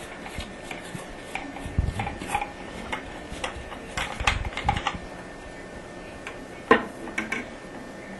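Light irregular clicks and scrapes as a toilet ball float is screwed onto the end of a metal float rod, the rod rattling as it turns, with one sharper knock about two-thirds of the way through.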